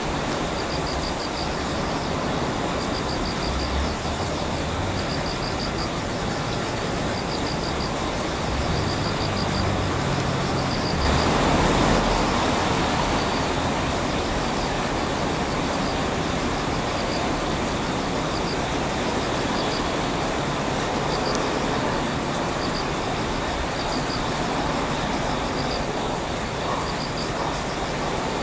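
Steady distant rumble of trains and road traffic that swells about twelve seconds in, with a faint high chirp repeating about once a second.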